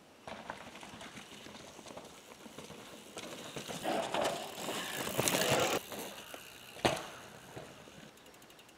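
Mountain bike passing close by on a dirt trail: tyres skidding and scraping through loose dirt, with the rear hub's freewheel ticking as it coasts. The sound is loudest about four to six seconds in, with one sharp knock about seven seconds in.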